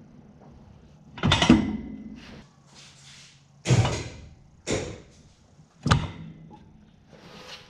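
Four heavy metal clunks, unevenly spaced, each with a short ring: a Ford 9-inch third member being shifted and pushed into the axle housing.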